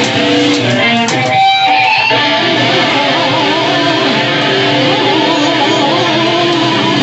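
Band playing live with a loud electric guitar to the fore: a few held notes in the first second, then a dense riff.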